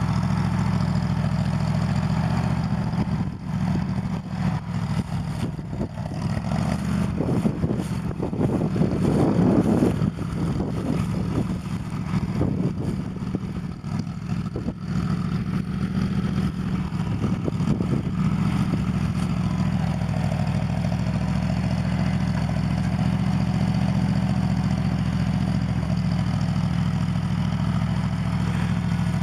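New Holland L425 skid steer's gasoline engine running on choke after a cold start. It runs steadily at first, turns uneven with louder surges from about three seconds in until about eighteen seconds, loudest around nine seconds, then settles back to a steady run.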